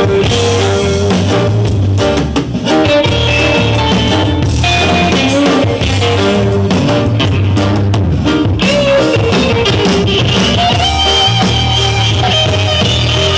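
Live rock band playing loud music with electric bass, guitar and a drum kit, mostly instrumental.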